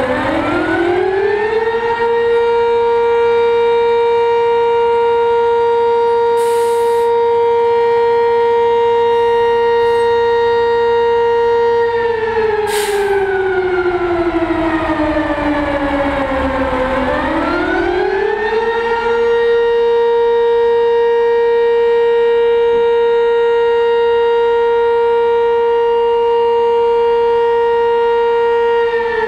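Fire siren sounding a slow wail. It winds up to a steady high tone, holds it for about ten seconds, winds down, then winds up and holds again, calling out the fire company to an alarm. Two short hisses cut in over it, with a low truck rumble beneath.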